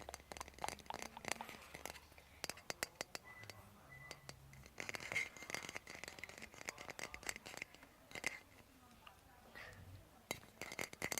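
Rapid, light tapping, clicking and scratching on small hard objects, some with a glassy clink, made close to the microphone in ASMR style.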